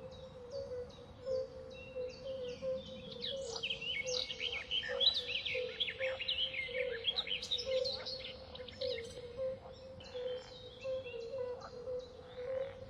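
Many small birds chirping and twittering, thickest in the middle, over a steady low hum with a faint regular flutter.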